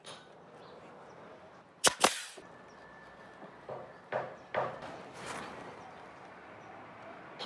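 Pneumatic nail gun firing twice in quick succession about two seconds in, driving fasteners into pine boards. A few softer knocks and rustles follow.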